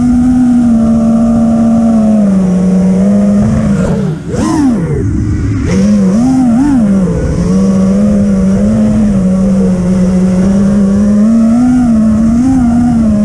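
FPV quadcopter's electric motors running at a steady pitch that wavers slightly with throttle changes; about four seconds in the throttle drops briefly and the pitch sweeps down and climbs back up before settling again.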